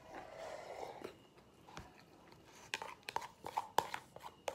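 Close-up eating sounds: soft chewing at first, then a quick run of sharp clicks, about three a second, as a plastic spoon scrapes and taps rice out of a plastic bowl.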